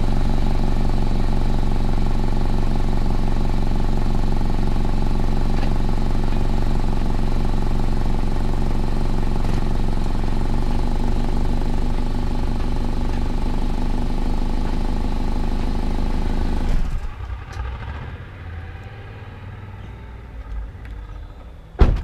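2006 Toyota Camry engine idling, its exhaust pulsing steadily, with an exhaust leak and/or clogged catalytic converter suspected by the owner. The sound drops away sharply about 17 seconds in, and a single loud thump comes just before the end.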